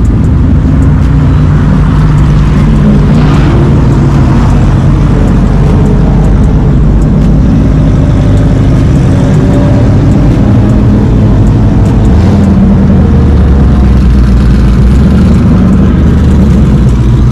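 Loud car engines running steadily, with one brief rev rising in pitch about three seconds in and a change in engine note around twelve seconds.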